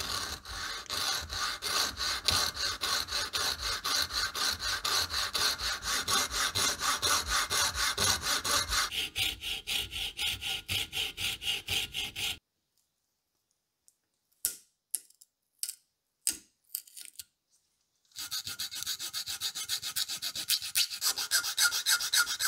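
Fine-toothed saw blade sawing a slot into a wooden handle ring held in a vise, steady back-and-forth strokes about three a second, stopping about twelve seconds in. A few light clicks follow. From about eighteen seconds a flat file rasps back and forth across the wood.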